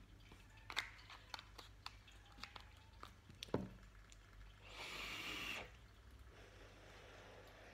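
Quiet sounds of a person vaping on a box mod: scattered small clicks and mouth noises, a soft knock, then about a second of breathy hiss as vapour is drawn or breathed out.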